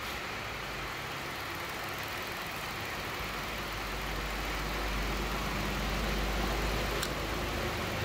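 A steady hiss of rain, with a car engine idling. The engine's low hum comes up about three seconds in and grows a little louder.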